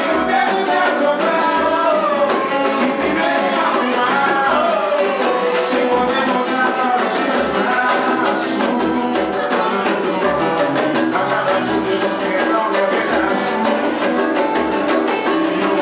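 Latin music with plucked guitar and singing over a steady beat.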